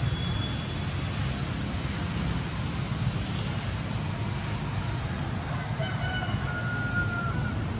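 Steady low rumble of outdoor background noise, with a faint, drawn-out distant call about six seconds in.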